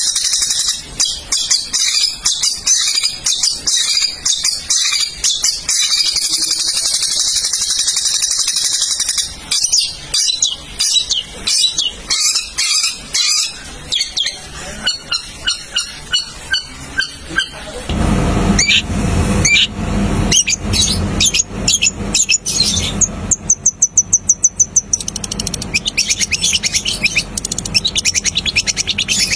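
Long-tailed shrike (pentet) singing loudly in a cage: a fast, chattering, high-pitched song of rapid repeated notes. Partway through, a low background hum comes in, and later there is a quick run of sharp notes, about seven a second.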